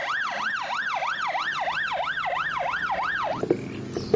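Electronic toy siren from a ladder fire truck: a fast up-and-down yelp, about three cycles a second, that stops about three seconds in. A few light knocks follow near the end.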